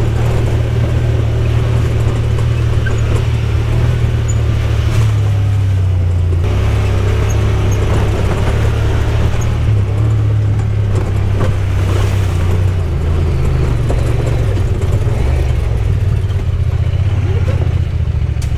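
Side-by-side UTV engine running steadily as the machine drives a rough trail. Its low drone shifts in pitch a few times, about six seconds in and again around ten to thirteen seconds in.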